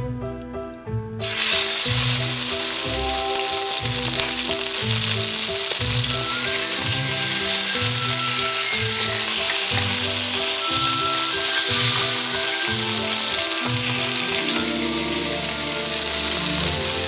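Beef tenderloin searing in hot oil in a stainless steel pan: a loud, steady sizzle that starts suddenly about a second in.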